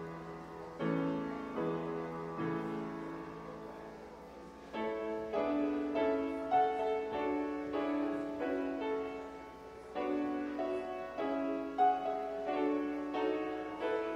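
Grand piano playing slow, sustained chords, each struck and left to ring and fade. It softens about four seconds in, then comes back fuller with a higher melody over the chords.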